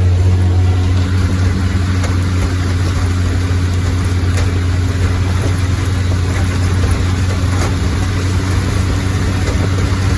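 Farm machinery running steadily: a loud, unbroken low engine or motor hum with no change in speed.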